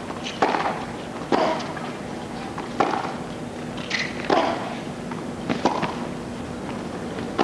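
Tennis ball struck back and forth in a baseline rally on a hard court: five sharp racket hits on the ball, about one to one and a half seconds apart.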